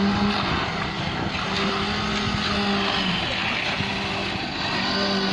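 Concrete truck's engine running with a steady drone, under the scraping of hoes and rakes pushing wet concrete across the roof.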